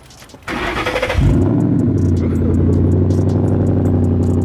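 Ford Mustang GT V8 cold start: the starter cranks briefly, the engine catches about a second in with a quick flare in revs, then settles into a loud, steady idle.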